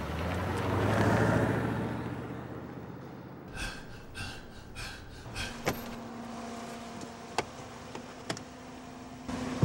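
A car passing, its engine and road noise swelling and then fading over the first three seconds, followed by a few scattered knocks and clicks and a faint steady hum.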